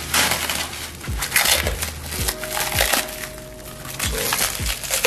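Plastic wrap crinkling and rustling in uneven surges as it is pulled off a packaged carbon fiber part, with background music's deep beat underneath.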